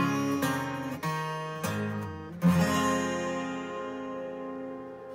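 Acoustic guitar strummed: a few quick chords, then a chord struck about two and a half seconds in and left to ring and slowly fade.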